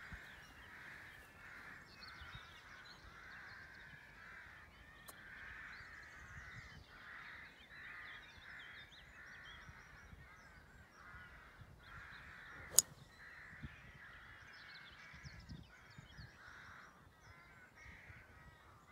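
A golf club strikes a ball off the tee: a single sharp crack about two-thirds of the way in, by far the loudest sound. Birdsong and calls carry on throughout.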